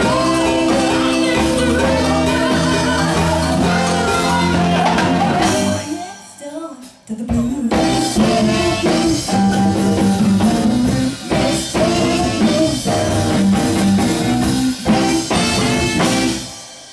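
Live blues band with saxophones, keyboards, bass guitar, drums and hand percussion playing the final bars of a song, with a singer. The band stops short about six seconds in, comes back in a second or so later, and the song ends near the end.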